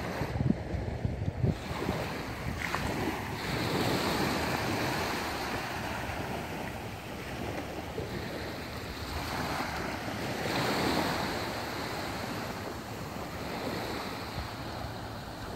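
Gentle surf washing over sand in shallow water, swelling and easing with the waves, with wind buffeting the microphone. A few brief thumps in the first second or two.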